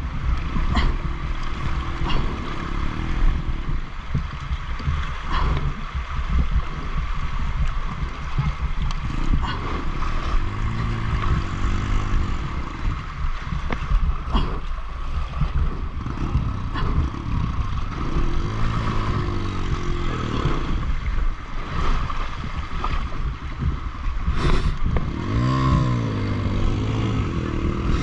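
Two-stroke dirt-bike engine revving up and falling back about three times, over the steady rush of river water around the bikes.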